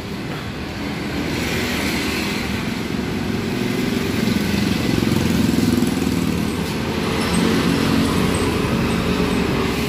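A motor vehicle's engine passing on a road, with traffic noise. It swells from about a second in to its loudest around halfway, then eases a little.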